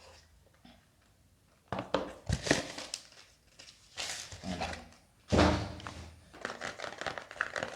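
Earphone retail packaging being opened and handled: irregular rustling and scraping with clicks, and a loud thunk about five seconds in.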